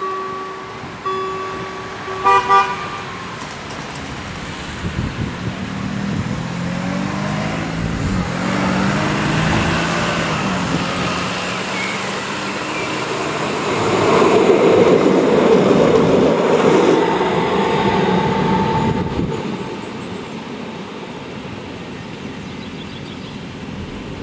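A horn gives a short, loud toot about two seconds in. Then an electric tram comes closer and passes, its motors whining in rising steps as it nears and its wheels running on the rails. The sound is loudest for a few seconds past the middle and then dies away.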